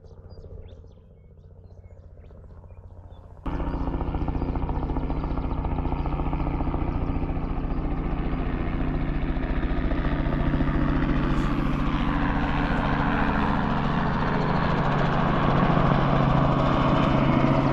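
Helicopter flying in overhead, its rotor and engine running steadily. The sound starts abruptly about three seconds in and grows slightly louder towards the end.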